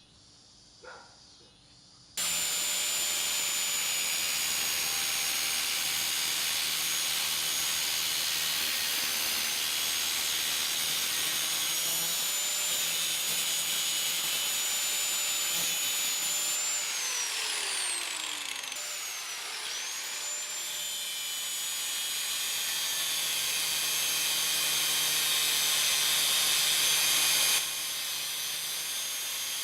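Electric grinder running steadily against the steel of a forged axe head, with a high whine over the grinding noise, starting suddenly about two seconds in. Around two-thirds through, the motor's whine falls in pitch and then climbs back up.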